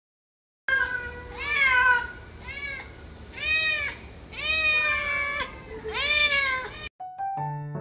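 A domestic cat meowing repeatedly, about six drawn-out meows that each rise and fall in pitch, the second and the long fifth the loudest. Soft piano music comes in just before the end.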